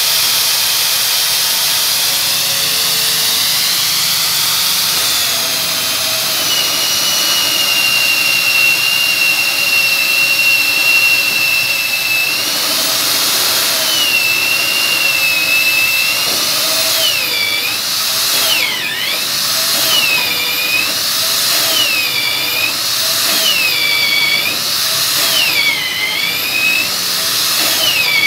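TCVN MD35 magnetic drill running with a high motor whine as it cuts into steel with its water coolant on. From about halfway through, the whine dips in pitch and recovers again and again, roughly every second and a half, as the cutter bites under load.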